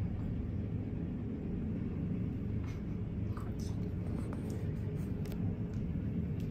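Steady low background rumble, with several faint light clicks in the middle seconds.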